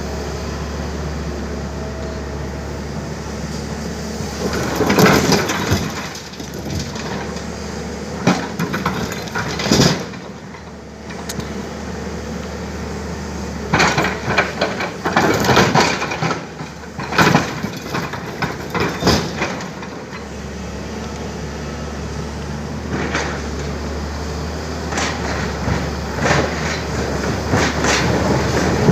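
Tata Hitachi excavator's diesel engine running steadily while boulders are loaded, with repeated bouts of rock knocking and clattering: about five seconds in, around ten seconds, through the middle stretch, and again near the end.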